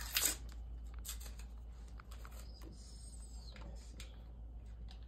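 Paper butter wrapper rustling and crinkling as it is peeled off a half stick of butter, in short irregular crackles, the loudest about the start.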